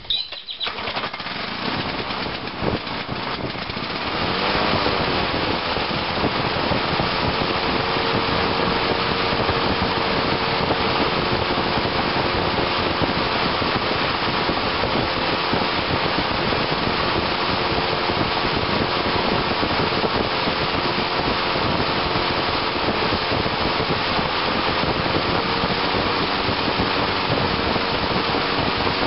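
A 1986 Lawn-Boy 8461 Commercial two-stroke mower engine is cold-started on choke with the recoil starter and catches on the second pull. About four seconds in its pitch rises, then settles into loud, steady running.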